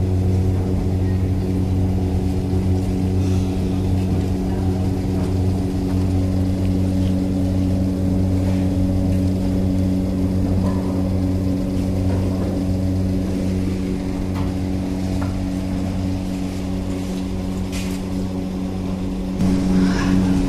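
Steady low machine hum with an even, pitched drone that steps up louder near the end, with a few faint clicks over it.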